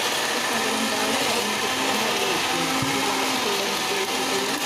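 Electric blender (mixie) running steadily without a break, grinding fresh corn kernels and water into a fine batter.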